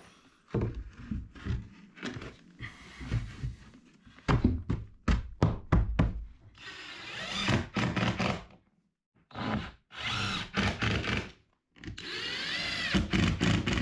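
Hand work at a wooden wall: a string of knocks and taps, followed by a small power driver run three times in short bursts, its whine rising and falling in pitch.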